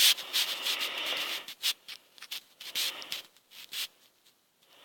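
A soft rustling hiss, then scattered short clicks and rubbing noises that die away near the end.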